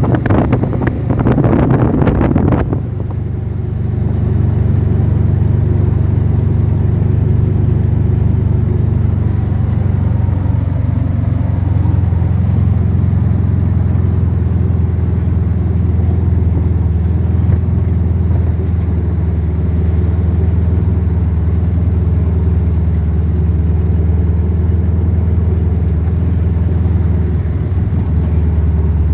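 Vehicle engine running steadily while driving, a low even hum that shifts slightly about twelve seconds in, after a brief rush of noise at the start.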